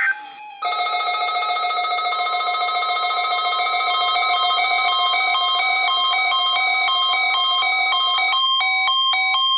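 Electronic alert melody from a weather radio receiver set off by the weekly warning-alarm test signal: a chime-like run of stepping beeping tones that starts about half a second in and changes notes faster near the end.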